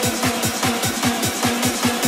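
Electronic dance music: a fast, even beat of low drum hits that drop in pitch, several a second, under steady synth tones.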